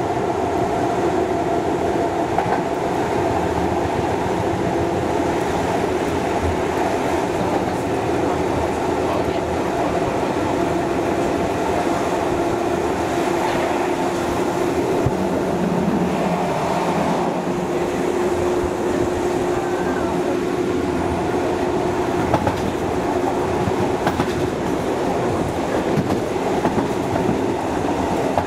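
Interior of an ALe 801/940 electric railcar running at speed: a steady rumble of wheels on rail with a constant humming tone and an occasional knock over the rail joints.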